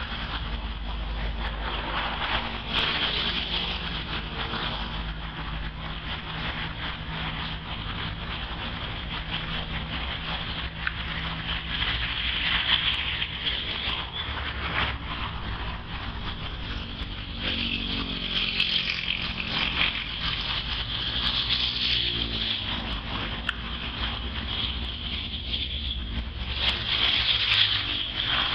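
Steady outdoor background noise: a low hum and a high hiss that swells and fades, with no single clear event.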